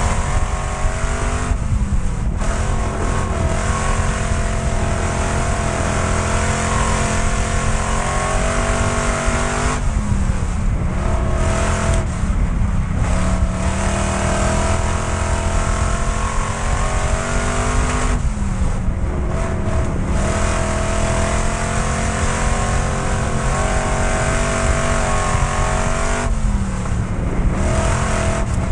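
Pure Stock dirt track race car's engine at high revs, heard from inside the car, with wind and track noise over it. The engine note dips several times as the driver lifts off for the turns, then climbs back as he gets back on the throttle.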